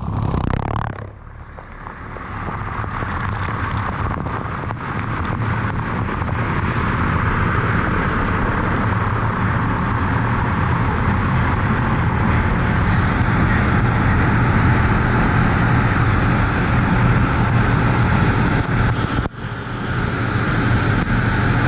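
Touchless automatic car wash gantry spraying high-pressure water over a pickup's roof and a rooftop cargo bag, a steady rushing hiss of spray with a low rumble under it, heard up close in the spray. It eases for about a second near the start, builds back, and drops out briefly near the end.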